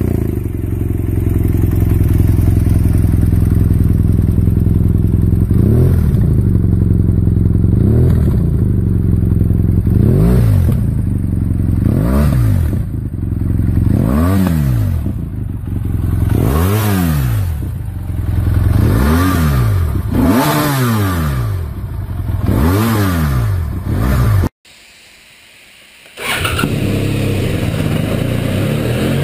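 BMW F800GT's parallel-twin engine through an aftermarket exhaust, idling just after starting, then blipped over and over, about one quick rev a second. After a short break, another recording of the engine running steadily on a dyno.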